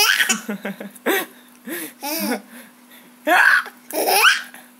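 Short hiccups mixed with laughter from a baby and a hiccuping toy monkey, about half a dozen separate bursts, some with a rising-then-falling pitch.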